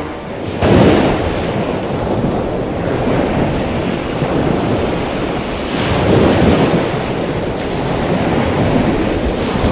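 Steady rushing noise like ocean surf, swelling about a second in and again around six seconds.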